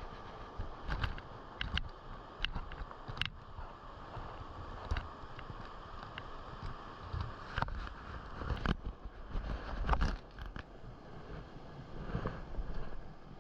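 Mountain stream running steadily, with scattered sharp clicks and knocks close by, about a dozen of them, the biggest around the middle.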